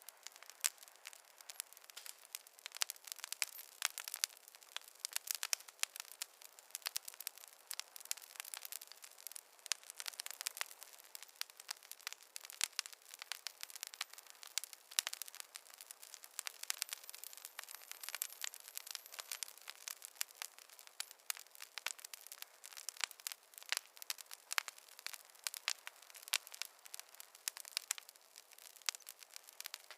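Wood fire crackling in a fireplace: dense, irregular pops and snaps over a faint hiss, thin and without any low roar.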